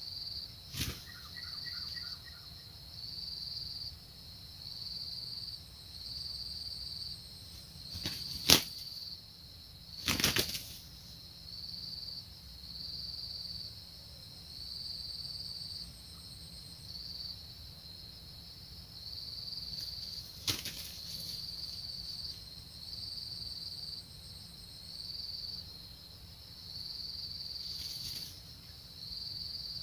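Red junglefowl roosters fighting, their wings beating in about five sudden flurries, the loudest a little past a third of the way in. Behind them a high insect chirr pulses on and off about once a second.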